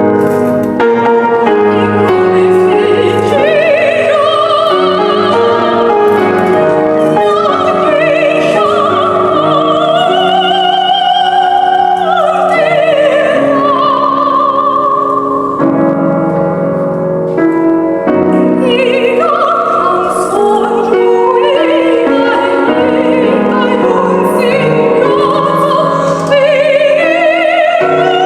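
Operatic soprano singing an aria with piano accompaniment, holding long notes with wide vibrato. The voice rests for about two seconds past the middle while the piano carries on alone.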